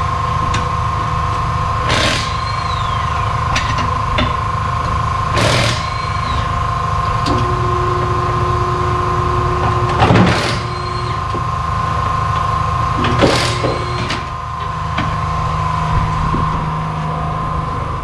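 Pneumatic tire changer working a tire off its rim: short sharp hisses of compressed air four times, a few seconds apart, over a steady shop-machinery hum.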